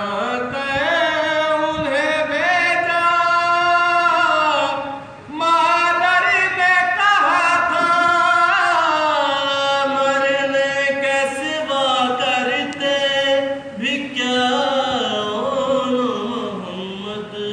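A man chanting a nauha, a Shia mourning lament, in long drawn-out melodic phrases, with two short breaks for breath, about five seconds in and again near fourteen seconds.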